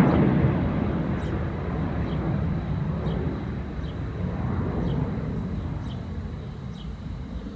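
Jet engine rumble of a Southwest Airlines Boeing 737 climbing out after takeoff, fading steadily as the plane moves away. Faint short high chirps repeat above it.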